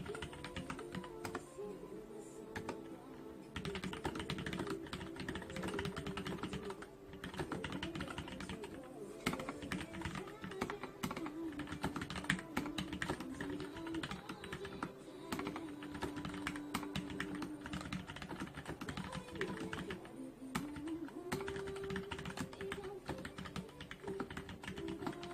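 Fast, irregular typing on a mechanical keyboard with Gateron Yellow linear switches, a dense run of keystroke clacks with a couple of short lulls. Background music plays underneath.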